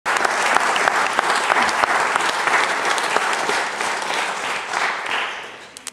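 Concert audience applauding, a dense patter of clapping that fades away near the end.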